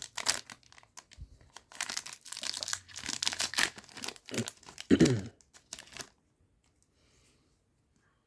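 Trading card booster pack wrapper being torn open and crinkled, a run of tearing and rustling that stops about six seconds in. A short voice sound cuts in near five seconds.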